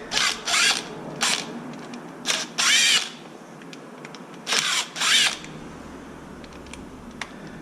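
Electric drill-driver spinning in short bursts, each whining up and falling back in pitch, as it backs out the screws holding the RC truck's differential housing closed.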